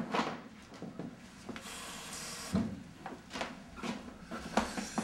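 Glassware and cupboard knocks and clatters, with a kitchen tap running for about a second roughly two seconds in, as a glass of water is fetched.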